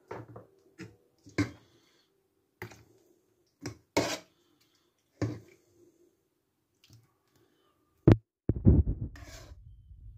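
Irregular sharp clicks and light knocks of handling, as the plastic food tub and the phone are moved about. A much louder knock comes a little after eight seconds, followed by a low rumbling rustle of handling close to the microphone.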